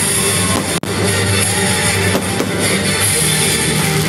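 Rock music with drums.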